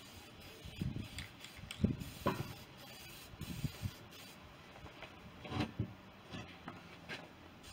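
Aerosol spray-paint can being sprayed onto a welded steel hitch in short bursts, with scattered clicks and knocks from handling the can and the metal.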